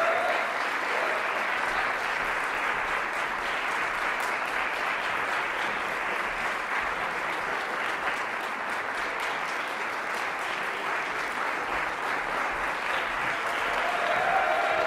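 Audience applauding steadily throughout, swelling a little near the end.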